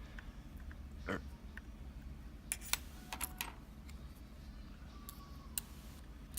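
Scattered light clicks and taps from a just-picked Yale rim cylinder and the lock picks being handled, with a small cluster of quick clicks about halfway through.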